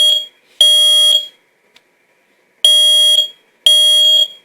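First Alert P1210 photoelectric smoke alarm sounding its test alarm: loud, high-pitched beeps in the temporal-three (code 3) pattern, three half-second beeps then a pause of about a second and a half, repeating while the test button is held down.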